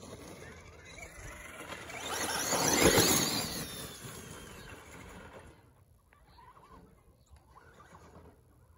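ECX Amp radio-controlled car's electric motor and drivetrain whining as the car drives past, the pitch gliding up and down, rising to its loudest about three seconds in and then fading away.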